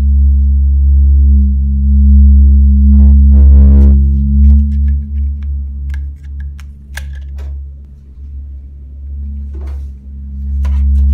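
Loud, deep sound-design drone from a horror film: a steady low hum with a tone layered above it, easing back about eight seconds in and swelling again near the end. A short rasping buzz comes about three seconds in, and scattered sharp clicks follow later.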